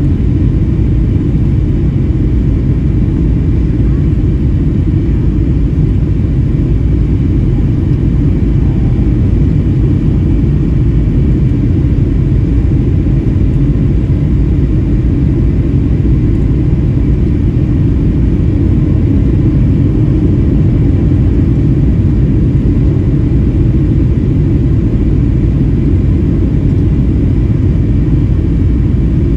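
Steady low rumble of cabin noise inside a Boeing 737-700 in flight, heard from a window seat over the wing: its CFM56 engines and the airflow over the wing with the flaps extended for the approach.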